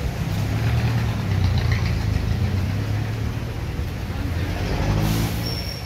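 Motor vehicle engine idling close by, a steady low drone, with street traffic around it.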